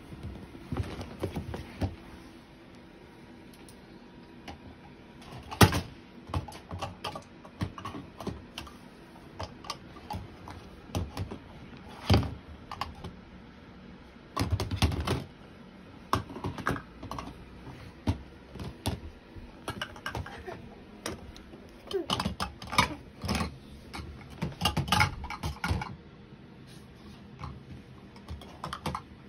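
Plastic stacking cups clicking and clattering against each other and a plastic storage-bin lid: irregular light knocks, some in quick runs, a few louder.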